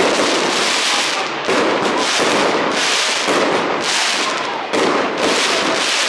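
Aerial fireworks crackling: crackling-star shells burst overhead into a dense, continuous crackle of many small pops, swelling in a new wave about once a second.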